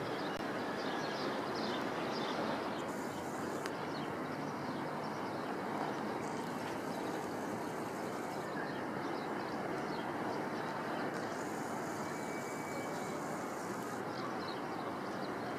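Steady outdoor city ambience heard from high above the streets: an even wash of distant traffic and wind, with a faint higher hiss that comes and goes three times.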